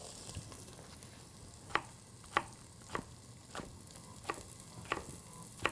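A chef's knife chopping a white onion on a wooden butcher block: sharp knocks about every half second, starting about two seconds in. Under them, onions and garlic sizzle faintly as they fry in oil in the pot.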